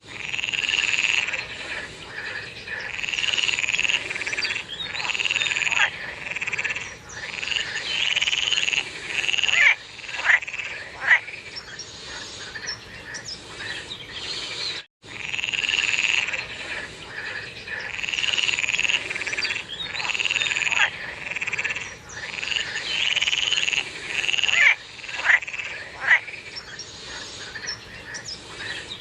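A chorus of frogs calling, overlapping croaking calls that swell and fade every second or so, with a few sharper single calls standing out. The same stretch of chorus repeats after a brief break about halfway through.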